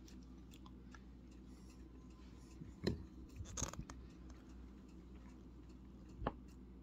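A few light clicks and knocks over a faint steady hum: a metal spoon clinking in a plastic cottage cheese cup, the sharpest about three seconds in and another near the end.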